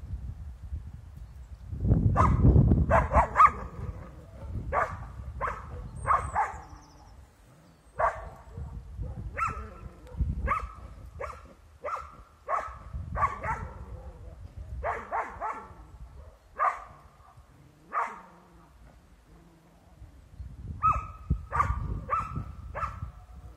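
A young Styrian coarse-haired hound barking at wild boar: a long series of single barks, roughly one a second, broken by a few short pauses. It is a hound giving voice on game.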